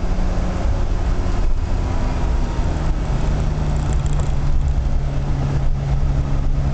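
1989 Rover Metro GTa's four-cylinder A-series engine pulling hard at speed, heard from inside the cabin over tyre and road noise on a wet track, its pitch shifting a few times.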